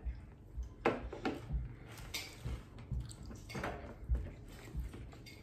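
Plastic food storage container handled on a tabletop and its lid pressed shut: a string of irregular light knocks and taps.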